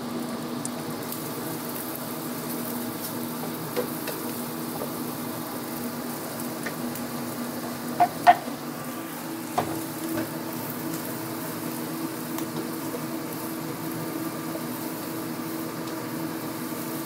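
Vegetables and egg stir-frying in a steel wok: a steady sizzle, with a wooden spatula stirring and scraping against the pan. Two sharp knocks come about eight seconds in, as shredded cabbage is scraped off a wooden chopping board into the wok. A steady low hum runs underneath.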